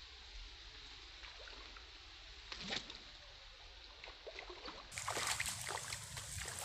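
Water splashing in a shallow flooded ditch as a casting lure is worked: one sharp splash nearly three seconds in, then a quicker run of small, irregular splashes and ticks from about five seconds on.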